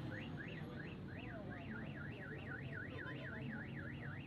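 Electronic siren or alarm warbling rapidly, its pitch sweeping up and down about four times a second, then cutting off near the end, over a low rumble of road traffic.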